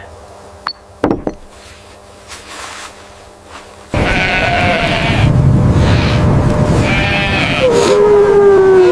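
Sheep bleating: several wavering calls over a steady rushing noise that starts suddenly about four seconds in. Before that it is quiet apart from a soft click and a knock.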